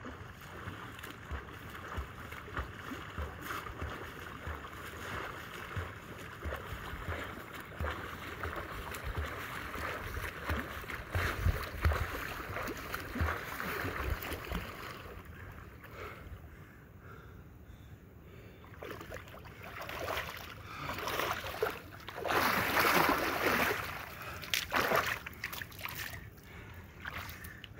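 Lake water lapping and splashing close to the microphone as a snorkeler swims up, with a loud rush of splashing about three quarters of the way through as he reaches the camera and comes up out of the water.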